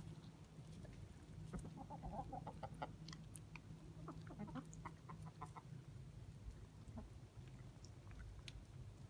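Chickens clucking softly in short runs, about two seconds in and again around four to five seconds in, with a few light clicks, over a faint steady low hum.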